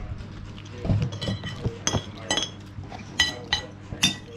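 Metal spoons and forks clinking against ceramic plates and bowls: about half a dozen separate, short ringing clinks.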